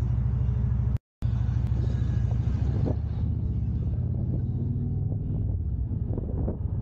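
Motorcycle engine running steadily, with wind noise on the microphone. The sound drops out completely for a moment about a second in.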